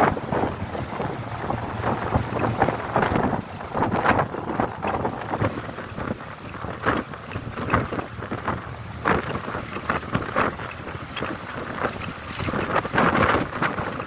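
Wind buffeting the microphone of a phone filmed from a moving vehicle, a rushing, gusty noise that swells and drops every second or so, over steady road noise, growing louder near the end.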